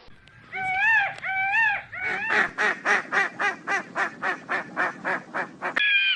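Duck quacking: two drawn-out calls, then a rapid run of short quacks, about four a second. A higher-pitched animal call cuts in near the end.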